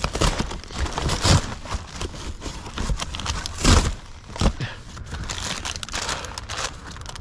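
Plastic snack and candy packaging crinkling and rustling as packages are handled and rummaged through. A few louder knocks come from the items being moved, the loudest a little under four seconds in.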